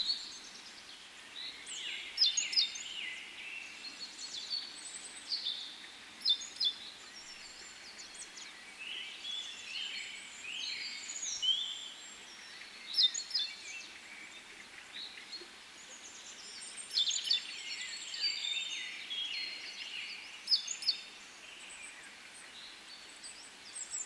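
Songbirds chirping and singing in repeated bursts of high trills and short falling notes, over a faint steady background hiss.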